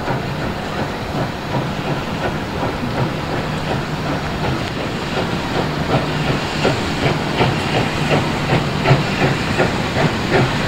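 Victorian Railways K-class 2-8-0 steam locomotive drawing near at low speed, hissing steam under a steady rhythmic exhaust beat that grows stronger from about halfway through.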